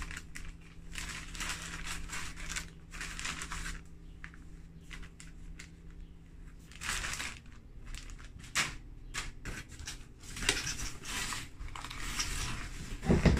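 Thin clear plastic bags crinkling and rustling in irregular bursts as cloth face masks are handled and pulled from them, with hands rummaging in a cardboard box.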